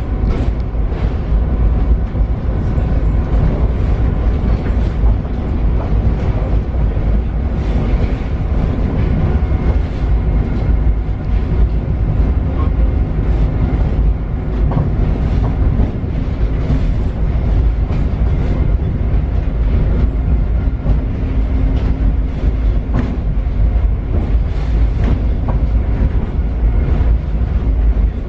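Paris Métro Line 7bis train, MF 88 stock, running along the line: a steady low rumble of wheels on rail, with frequent clicks and knocks from the track.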